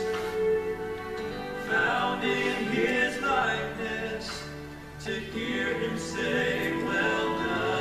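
A congregation singing a hymn together, with long held notes.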